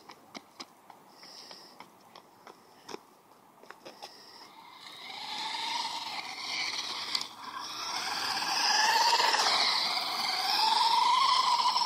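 A radio-controlled truck driving on asphalt: a few faint clicks at first, then from about five seconds in its motor whine and tyre noise grow loud and waver in pitch as it runs close by.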